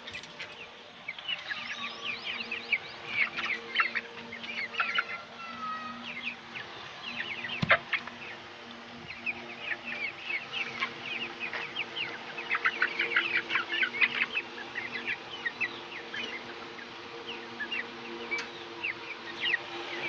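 Three-month-old Golden Misri chickens cheeping and clucking as they feed, a dense run of short high chirps throughout over a steady low hum. One sharp knock sounds about eight seconds in.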